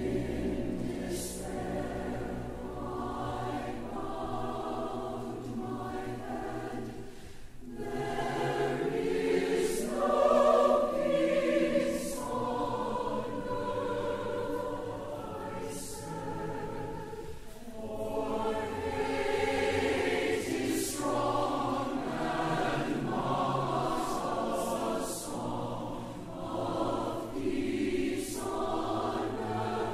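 Four-part mixed church choir singing slowly and softly with orchestral accompaniment, the verse "And in despair I bowed my head; 'There is no peace on earth,' I said", in phrases with short breaths between them.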